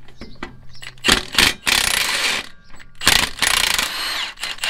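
Milwaukee Fuel brushless cordless impact wrench hammering on the 13/16 nut of a truck's rear shock lower bolt, breaking it loose. It comes in several bursts starting about a second in, and the motor whine falls away near the end.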